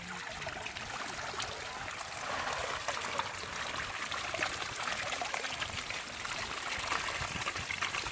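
Water trickling and splashing in a steady flow, a little louder from about two seconds in.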